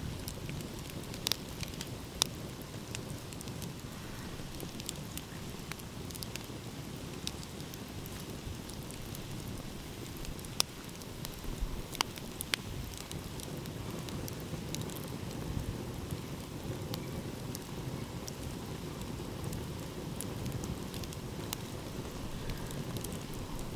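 Wood fire crackling, with scattered sharp pops at irregular intervals, over a low steady rumble of ocean waves.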